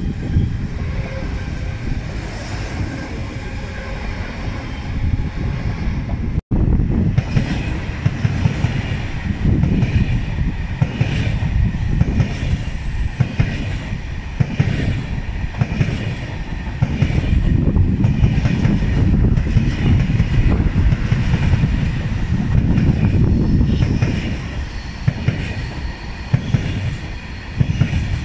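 A double-deck electric multiple unit passes below, then, after a sudden break about six seconds in, a pair of coupled TGV Duplex and Euroduplex double-deck high-speed trainsets rolls past close by: a steady rumble with wheels clacking in a regular rhythm over rail joints and points.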